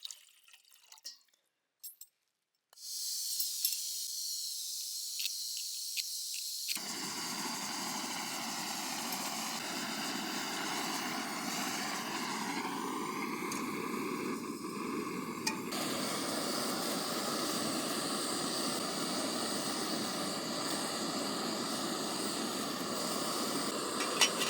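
Jetboil canister gas stove: gas hisses from about three seconds in, then the burner catches about seven seconds in and runs with a steady, even hiss.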